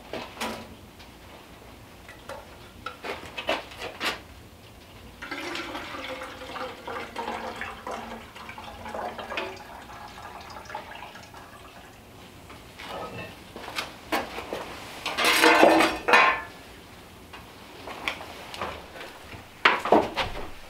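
Water poured from a small metal pot into a cloth-covered pot on a woodstove, a steady pour lasting several seconds, amid clinks and clatter of metal pots. A louder burst of clattering and knocks comes later on, with more knocks near the end.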